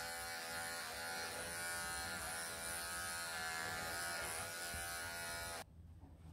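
Electric pet hair clippers buzzing steadily as they shave a long-haired Persian cat's coat, switched off suddenly about five and a half seconds in.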